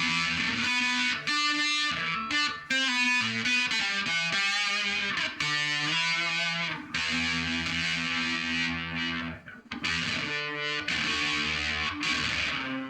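Electric guitar played through a fuzz pedal with phaser and octave-divider effects. Quick distorted note runs give way to longer held notes about halfway through.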